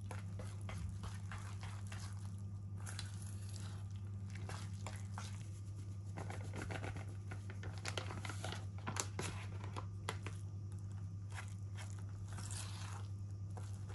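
Wire whisk stirring and scraping a thick, crumbly tofu-and-flour dough in a stainless steel bowl, an irregular run of crunching scrapes and clicks against the metal, with the bag of mix rustling as more is poured in partway through. A steady low hum runs underneath.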